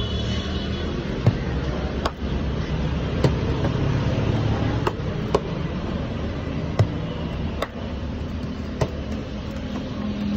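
Roti dough being slapped flat between the palms for a tandoor: sharp single slaps, roughly one a second at an uneven pace, over a steady low background rumble.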